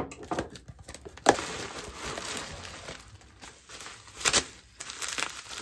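A cardboard shipping box opened and plastic bubble wrap crinkling and rustling as it is handled. Sharp crackles come about a second in and again past four seconds.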